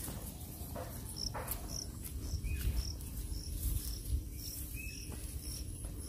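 An insect chirping in short, high-pitched pulses about twice a second, over a steady low rumble.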